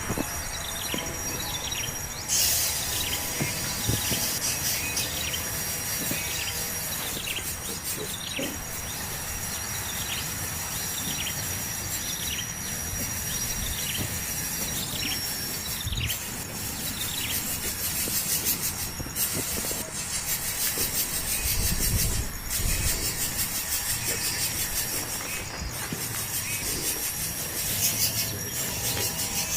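A bird calling over and over with short falling chirps, about one a second, over a thin steady high insect-like drone and a constant hiss of background noise.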